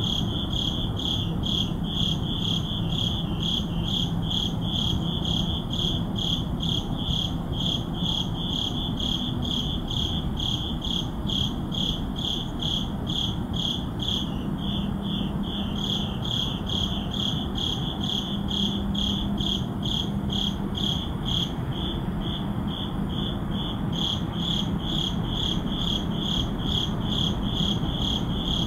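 Crickets chirping in a steady, evenly spaced rhythm that keeps on without a break, over a low steady background hum.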